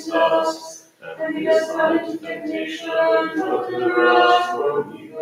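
Unaccompanied voices chanting a vespers hymn, with a short break about a second in and long held notes later on.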